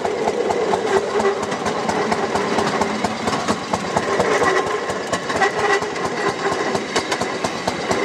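Fairmont M9 railroad speeder (motorcar) running down the track: its engine drones steadily under a rapid, irregular clatter of wheels on the rails.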